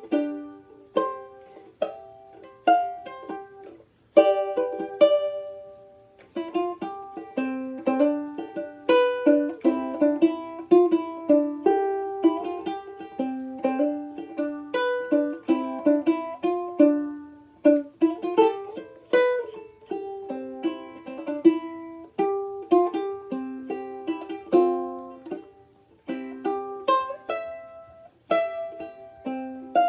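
Outdoor tenor banjolele in reentrant gCea tuning played solo: a continuous run of plucked notes and chords, each note ringing briefly and decaying fast, with short pauses about four and six seconds in.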